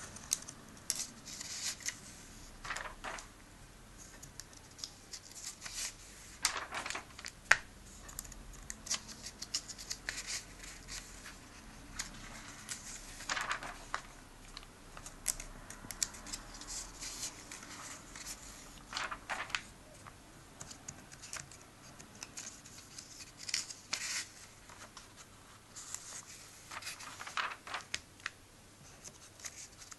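Pages of a comic book turned by hand: a short papery swish or rustle every few seconds, with quieter handling noise in between.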